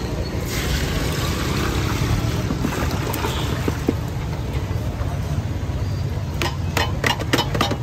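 Milk pouring from several cartons onto crushed ice in a steel pot, a splashing trickle over a low steady rumble of traffic. A quick run of sharp clicks comes near the end as the cartons are handled.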